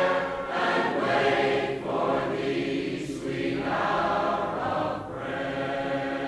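A congregation of mixed men's and women's voices singing a hymn together in held notes, with a brief breath between phrases about five seconds in.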